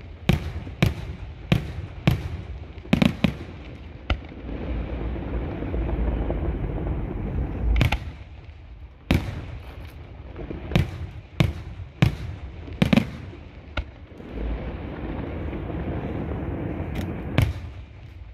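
Aerial firework shells bursting, a string of sharp bangs at uneven intervals, some close together in pairs, with low rumbling between them.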